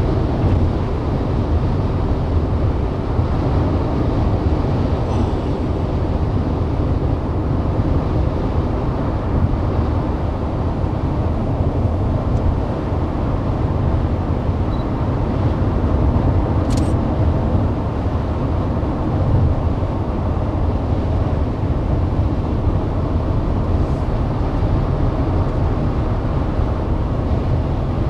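Steady road and engine noise inside a moving car's cabin, a continuous low rumble with no changes.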